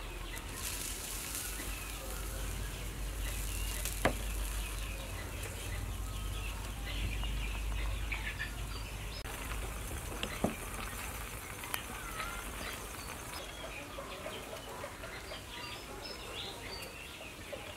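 Chopsticks clicking a few times against a steel hot pot and bowl during eating, over a steady hiss and low rumble, with faint bird chirps.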